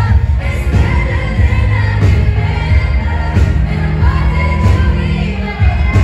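Live pop music played through a concert PA: a woman singing over a loud backing with deep, heavy bass, heard from within the audience.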